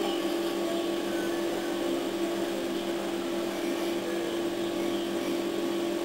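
Steady mechanical hum: one constant tone over an even hiss, unchanging throughout.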